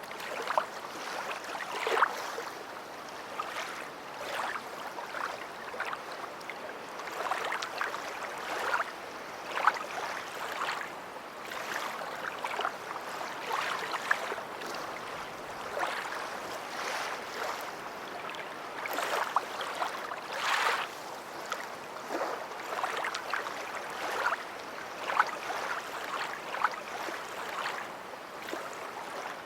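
Beach waves washing and lapping at the shore: a continuous wash of water broken by many small, irregular splashes.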